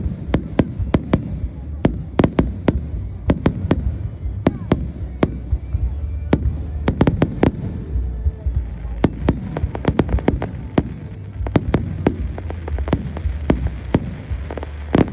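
Aerial fireworks going off in a rapid, irregular string of sharp bangs, several a second, over a steady low rumble.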